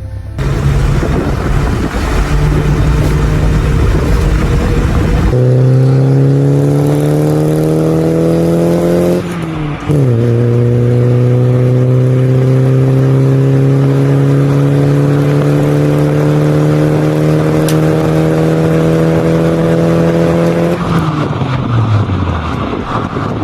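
A car engine pulling hard under acceleration, its pitch climbing, then dropping sharply at an upshift about ten seconds in. It climbs steadily again in the next gear and falls away near the end as the car eases off. A loud, rough rumble comes before the engine note clears, in the first five seconds.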